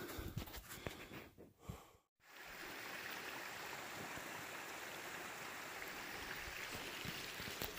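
Irregular footsteps for about two seconds, then a steady rush of running water from a stream.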